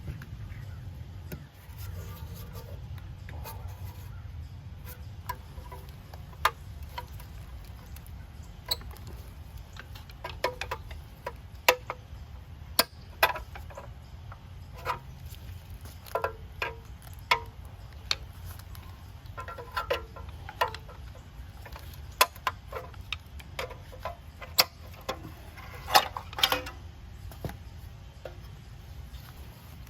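Scattered sharp clicks and light metal taps of hand tools working on a truck's front wheel hub, some in quick clusters, over a low steady rumble.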